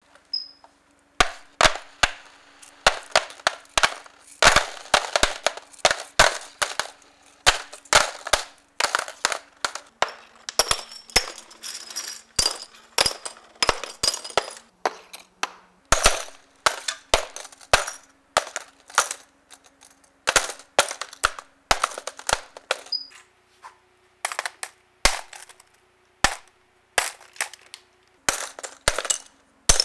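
Coins, plastic combs, hairbrushes and a golf ball dropped one after another onto a hard tabletop, each landing as a sharp clatter or click: dozens of impacts at irregular spacing, some in quick clusters.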